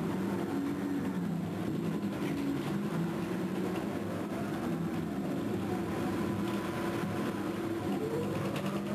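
Large 35-cubic-yard mining shovel's drive machinery running under load as the dipper works into the bank: a steady drone whose tones change in steps, with a rising whine near the end.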